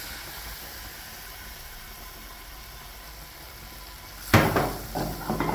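Butter sizzling steadily as it melts in a pan over low heat. About four seconds in comes a sharp knock, then a few lighter knocks of cookware.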